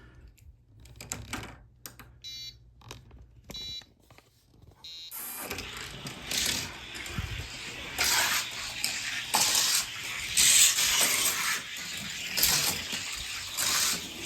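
Two short electronic beeps, then a die-cast toy car running down a gravity drag track, a loud rushing rattle of its wheels on the track with repeated louder surges.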